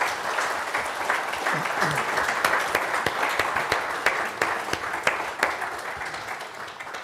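Audience applauding: a dense patter of many hands clapping that slowly thins out toward the end.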